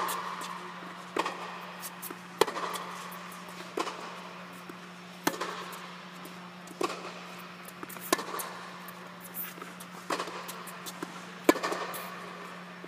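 Tennis rally: sharp pops of racket strings striking the ball, with ball bounces on the hard court, about one every second and a half. The nearer player's hits are the loudest and echo briefly around the indoor court. A steady low hum runs underneath.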